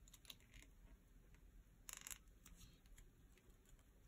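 Near silence with faint ticks and a brief scratchy rustle about two seconds in: small paper decoupage pieces being pressed onto a foam pad by hand.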